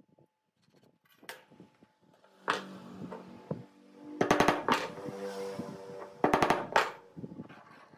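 Hammer tapping a small nail through a thin wooden strip into a wooden board: a single knock, then a quick run of light taps about four seconds in and another about six seconds in.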